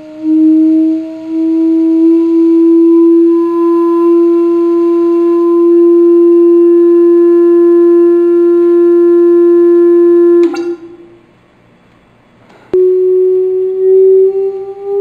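Square Chladni plate driven by a vibration generator, giving a loud steady tone whose pitch rises slowly as the driving frequency is swept through a resonance. It cuts off with a click about ten and a half seconds in, then returns with a click about two seconds later at a higher pitch, still rising slowly.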